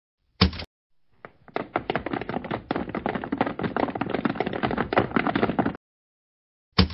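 A short knock about half a second in, then a fast run of light taps lasting about four seconds, and another short knock near the end.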